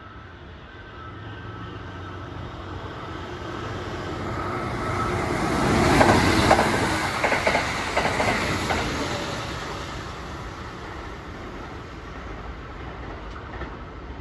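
Kintetsu limited express train running through the station at speed without stopping: the rumble builds as it approaches, is loudest with wheel clatter as the cars pass about six to eight seconds in, then fades as it runs off.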